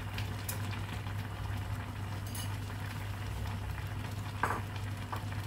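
Meatball-and-cabbage broth boiling in a pot on a gas burner, a steady bubbling hiss over a constant low hum, with a few light clicks of a metal spoon against the pot. The clearest click comes about four and a half seconds in.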